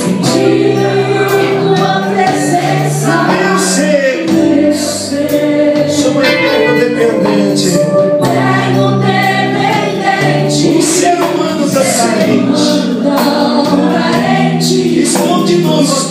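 A woman singing a Portuguese-language gospel worship song into a microphone over amplified backing music with sustained bass notes and a steady beat.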